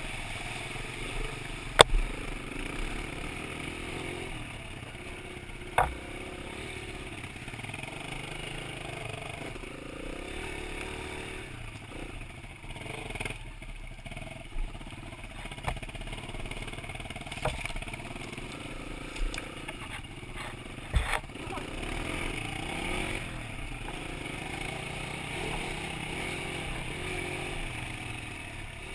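Kawasaki KLX140L dirt bike's small single-cylinder four-stroke engine running on a rough trail, its revs rising and falling, heard through a helmet-mounted camera with a steady wind hiss. Several sharp knocks stand out, the loudest about two seconds in and about twenty-one seconds in.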